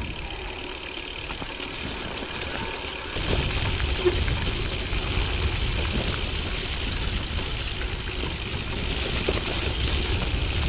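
Wind buffeting a chest-mounted GoPro's microphone over a steady hiss of heavy rain while cycling; the low rumble gets louder about three seconds in.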